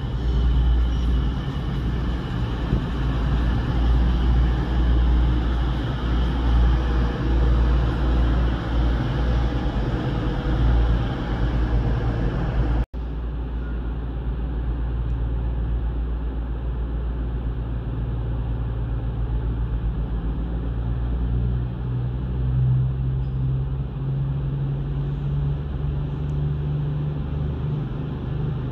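High Speed Train (InterCity 125) diesel running past on the far platform road, a loud dense rumble and wheel noise. About halfway through the sound changes abruptly to a quieter, steadier rumble, whose low diesel engine note grows louder near the end.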